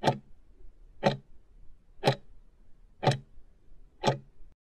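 Clock-tick sound effect of a countdown timer: five sharp ticks, one each second, counting down the last seconds to zero.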